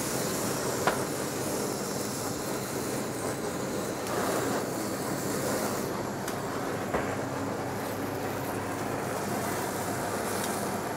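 Handheld gas blowtorch flame rushing steadily as it chars soy-marinated slices of beef bone marrow in a metal tray, with a few light clicks.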